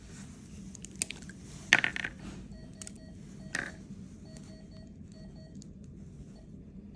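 Sharp clicks and small snaps as an IV catheter and its cap are handled in gloved fingers, the loudest just under two seconds in. From about halfway, faint short electronic beeps come in quick runs from a patient monitor.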